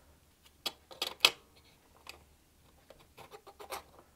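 Sharp clicks and knocks of a circuit board being worked loose and lifted out of its metal housing. The loudest knock comes about a second in, with a cluster of lighter clicks near the end.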